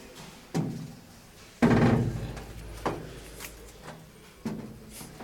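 Footsteps thudding down the steps of a railway passenger car. There are four heavy thumps, and the second one, about a second and a half in, is the loudest, with a low rumble after it.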